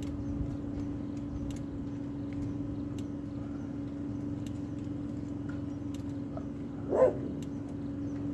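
A dog gives one short bark about seven seconds in, over a steady low hum.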